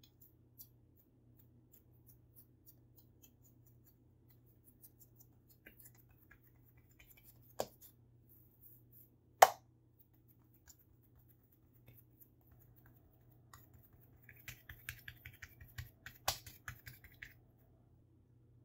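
Hands pressing and patting a ball of bread dough flat on a paper-covered counter, quietly. There are a few sharp taps, the loudest about halfway through, and a run of small crackling taps near the end as the paper is handled, over a faint steady hum.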